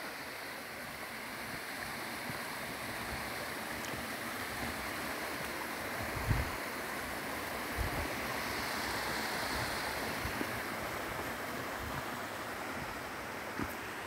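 Rocky mountain stream rushing over boulders: a steady hiss of flowing water that swells a little in the middle, with a couple of brief low thumps on the microphone near the middle.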